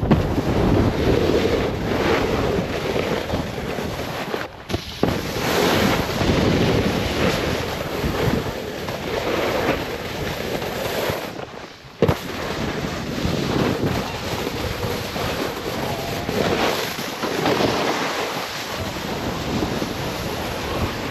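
Wind rushing over the microphone and a snowboard sliding and scraping through slushy spring snow on the move. Twice the rush drops away briefly, and the second lull, about twelve seconds in, ends in a sharp knock.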